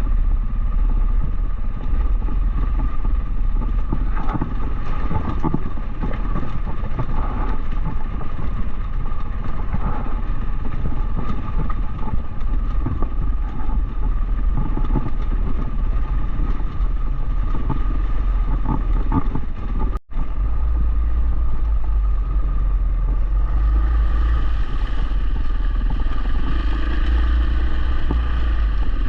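Dual-sport motorcycle running on a trail, its engine note under heavy wind rumble on the microphone, with irregular clatter in the first part. There is an abrupt break about 20 seconds in; after it the engine runs more steadily, and its pitch rises near the end.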